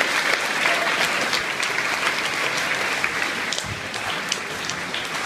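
A large audience applauding, dense clapping right after a sung performance has ended, easing off slightly toward the end.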